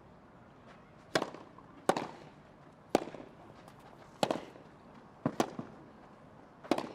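Tennis rally: a ball struck back and forth by rackets, six or seven sharp pops about a second apart, two of them in quick succession about five seconds in.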